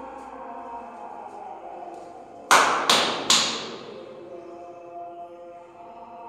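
Three sharp strikes about half a second apart, each ringing out and fading, over devotional chanting music.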